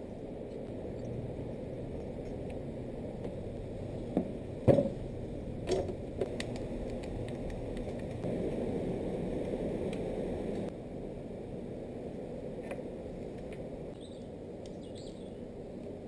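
Hands handling a rifle and its mounted sight and accessories: a few sharp clicks and knocks of parts being fitted, the loudest about five seconds in, over steady background noise. A bird chirps faintly near the end.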